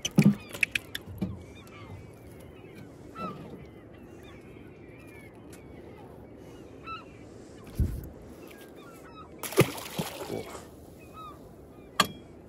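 A feeding flock of seagulls calling continuously, many short rising and falling cries over one another. Sharp knocks and thumps cut in near the start, about two-thirds of the way through and near the end, as the freshly landed bass and the fishing tackle are handled.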